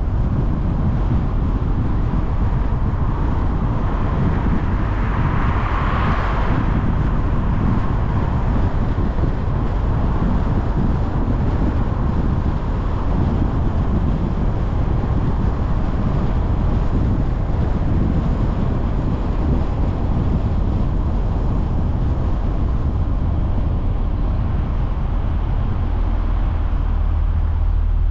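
Car driving along a street: steady low rumble of road and wind noise, with a brief rise in noise about six seconds in.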